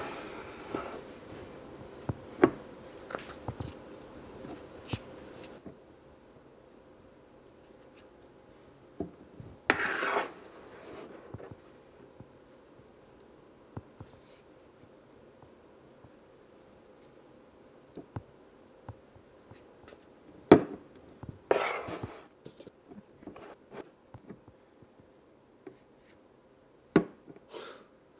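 Kinetic sand being scooped and pressed with plastic ice-cream toys: soft scraping and rubbing, with scattered small ticks in the first few seconds, two longer scrapes about ten seconds in and again past twenty, and a few sharp knocks of plastic on the table.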